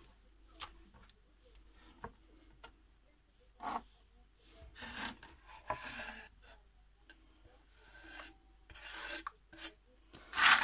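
Hands handling raw meat cubes and sliced onion: irregular soft rubs and scrapes against a wooden cutting board and a plastic tray.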